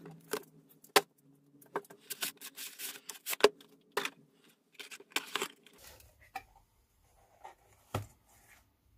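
Cardboard boxes being handled and opened by hand: a rapid run of sharp crackles, clicks and rustles of cardboard and packing tape, then quieter rustling as a lid flap is opened, with a single louder knock near the end.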